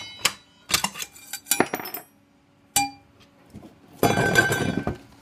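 Metal parts of a circular saw clinking and ringing as the arbor bolt, washer and old blade are taken off: a quick run of sharp clinks in the first two seconds and one more near three seconds. About four seconds in comes a rough scraping rattle lasting about a second as the saw is handled.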